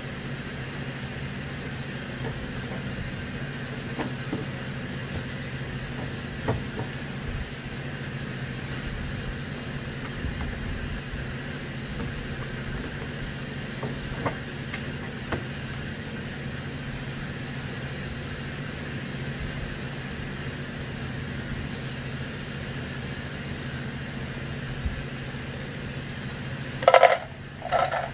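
Steady low background hum with a few faint clicks as plastic push pins are pried out of a car's radiator support cover. Near the end, a short loud rattle as the pins drop into a plastic cup, followed by a few lighter clicks.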